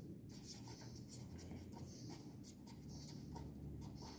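Pen writing on paper: faint, irregular scratching strokes as a word is written out by hand.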